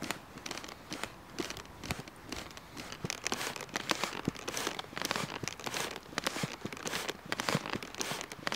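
Wood charcoal fire crackling in a stone forge, a dense run of quick snaps and pops that grows busier about three seconds in.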